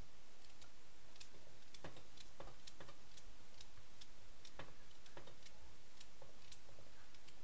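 Carrot slices dropped a few at a time into a stainless steel saucepan of frying vegetables, landing with irregular light taps and clicks over a steady hiss.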